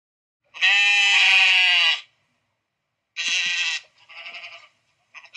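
Sheep bleating: one long bleat about half a second in, then several shorter bleats near the end.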